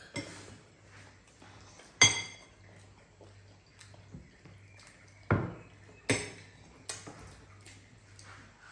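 Metal spoons and forks clinking against bowls as children eat: a handful of separate sharp clinks, the loudest about two seconds in with a brief ringing tone, and a duller knock a little past five seconds in.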